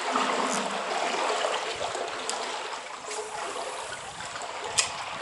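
Trout stream water flowing steadily, with a few light clicks, the sharpest near the end.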